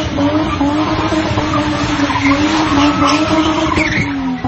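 BMW E30 spinning doughnuts: the engine is held at high revs on a steady, slightly wavering note while the rear tyres screech. The engine pitch dips briefly near the end, then climbs back.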